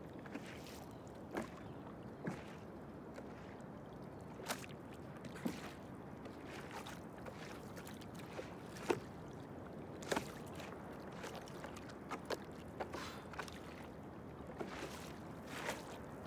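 Water lapping against the hull of a small boat drifting on a calm sea: short, irregular slaps and splashes over a steady hiss.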